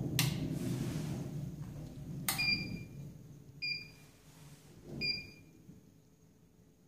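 A click, then three short electronic beeps about a second and a half apart, each starting with a small click: key presses on the RG-202 smartphone dryer's control panel.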